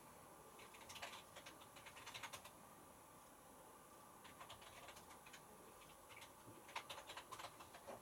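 Near silence: room tone with faint, irregular light clicks in two short clusters, one in the first half and one near the end.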